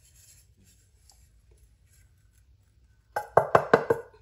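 A small bowl knocked against the rim of a glass mixing bowl to shake out the last of a dry spice mix: a quick run of about six clinking knocks starting about three seconds in.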